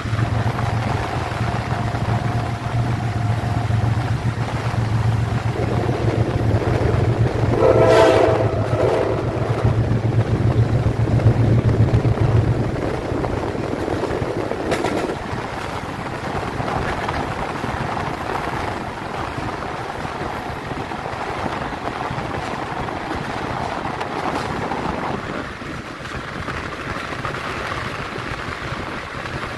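Train running along the track with a steady low hum that drops away about twelve seconds in. Its horn sounds once for about a second around eight seconds in, and the rumble of the wheels on the rails goes on throughout.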